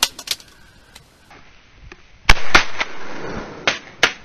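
Shotgun fire at a flying duck: a very loud shot about two seconds in with a second report close behind it, then two fainter sharp cracks near the end.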